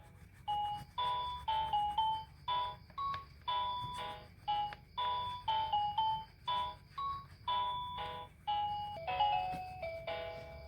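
Electronic toy melody from a children's singing colouring board: a simple tune of short beeping notes, about two a second, played while the picture is being coloured in.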